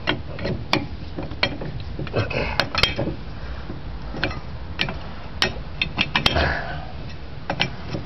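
Irregular sharp metal clicks and clinks as a long wrench turns the centre forcing screw of a bolted-on hub puller, working a tight hub off a Bobcat 463 skid steer's axle.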